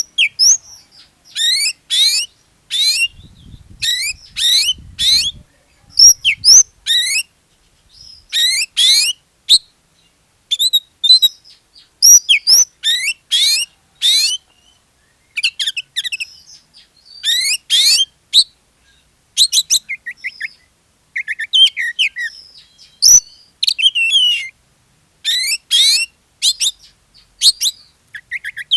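Oriental magpie-robin (kacer) in full song: phrases of quick, rising whistled notes in short bursts with brief pauses between them.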